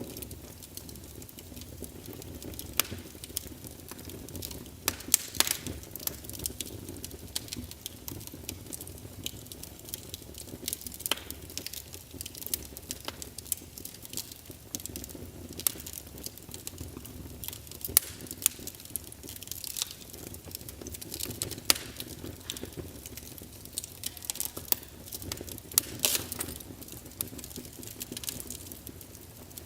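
Wood fire burning in a fireplace: frequent irregular sharp crackles and pops over a low steady rumble of the flames.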